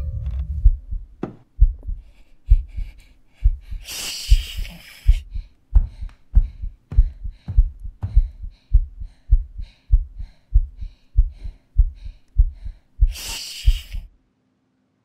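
A pounding heartbeat as film sound design: steady low thumps about two a second, over a faint hum. Twice, about four seconds in and near the end, a hiss swells up for about a second, and everything cuts off suddenly just before the end.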